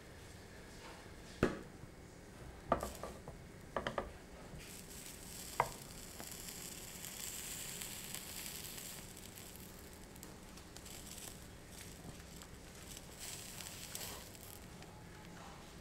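Soufflé omelette sizzling softly in a frying pan as it is folded over with spatulas, with a few sharp knocks of the utensils against the pan in the first six seconds.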